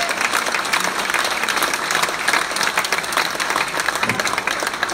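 Large audience applauding, many hands clapping at once in a steady, dense patter.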